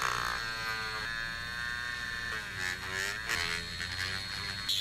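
Dremel rotary tool motor whining as it spins a small white plastic part in its collet. A hand-held blade is pressed against the spinning plastic to turn it down, and the motor's pitch sags and recovers under the cut. A brief scraping hiss comes near the end.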